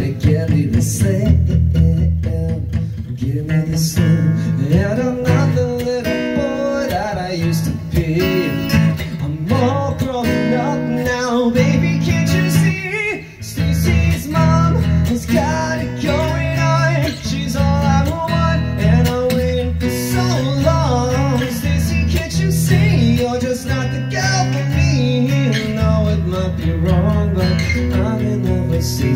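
Acoustic guitar strummed in a steady pop-rock rhythm, with a man's voice singing along at times.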